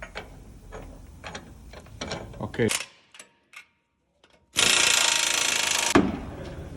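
Ratchet clicking on the truck's leaf-spring U-bolt nuts. After a short silence, a loud tool runs for about a second and a half and then stops.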